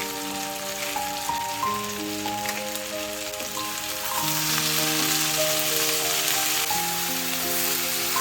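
Food sizzling in a frying pan, a steady hiss that grows louder about halfway through, under soft background music of held notes.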